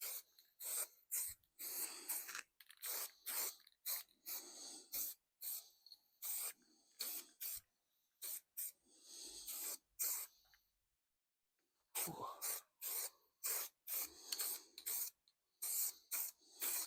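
Aerosol can of high build primer spraying in many short, quick bursts of hiss, with a pause of about a second a little past the middle: mist coats being dusted onto a bare bicycle frame.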